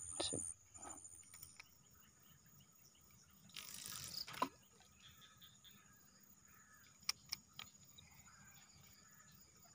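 Faint insects trilling steadily in a thin high tone at a riverbank. About three and a half seconds in comes a second-long rustling noise ending in a knock, and two sharp clicks follow around seven seconds in.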